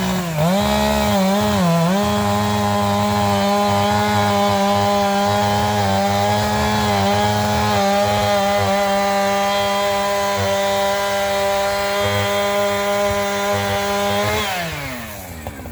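Chainsaw cutting through a tree trunk on the felling cut behind the directional notch. It blips the throttle a few times, then runs steadily at full throttle, and near the end the engine winds down as the throttle is released.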